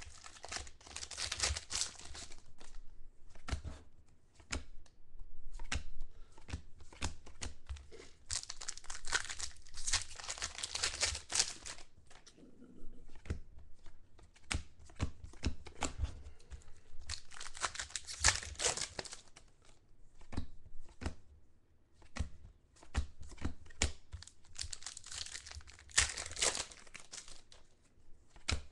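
Foil trading-card pack wrappers being torn open and crinkled, in several separate bouts of tearing and rustling. Between the bouts, short clicks and slides of cards being handled.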